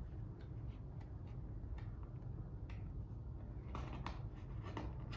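Paper and card game components being handled: light rustles and small scattered ticks over a steady low hum.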